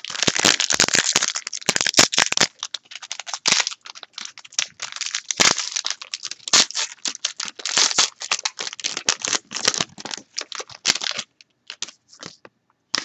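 Foil trading-card pack wrapper being torn open and crinkled in the hands: dense crackling and crinkling that thins to a few scattered crackles about eleven seconds in.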